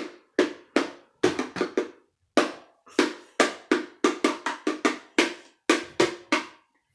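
A children's plastic toy drum beaten with a stick, about two dozen sharp strikes in an uneven rhythm, each ringing out briefly.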